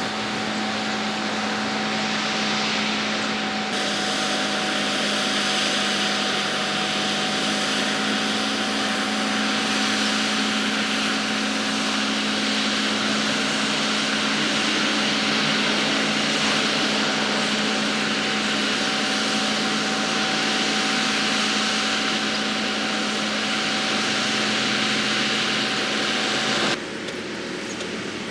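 Heavy construction machine's engine running steadily with a constant whine over a broad mechanical hiss; the sound changes abruptly and gets quieter near the end.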